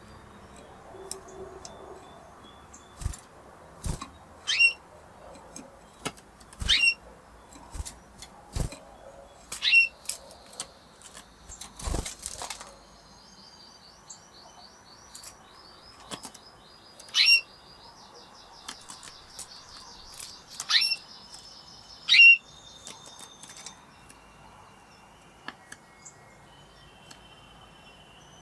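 Spanish Timbrado canaries: loud, short chirps that sweep sharply downward, coming every second or two. A soft rolling trill of song sits under them through the middle. A few low thumps fall in the first half.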